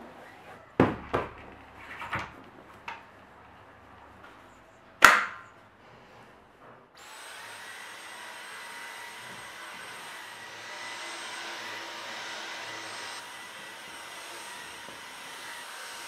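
A few soft knocks and one sharp knock as sofa cushions are handled, then about seven seconds in a Dyson cordless stick vacuum switches on and runs steadily with a high whine, its crevice tool working along the sofa base.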